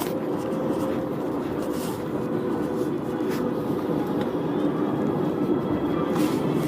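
Steady drone of a moving car heard from inside the cabin: road and engine noise with a low hum.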